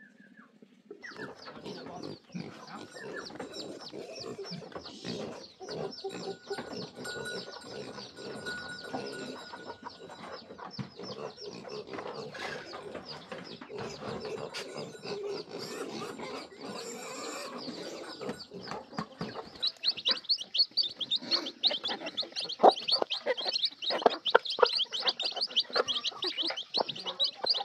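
Farmyard piglets and chickens calling as they crowd round to be fed. From about twenty seconds in, a brood of chicks peeps loudly and fast.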